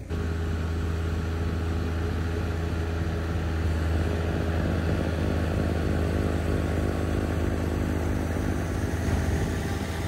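John Deere 1025R subcompact tractor's three-cylinder diesel engine running steadily, driving its 47-inch front-mount snowblower as it throws snow.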